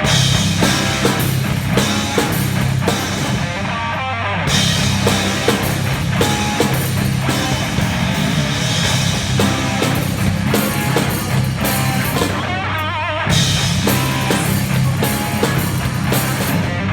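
Rock band playing live: drum kit keeping a steady beat under guitar.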